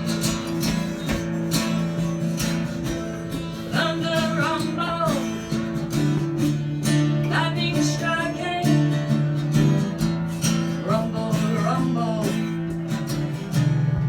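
Acoustic guitar strummed steadily through sustained chords, with a voice singing three short wavering phrases over it.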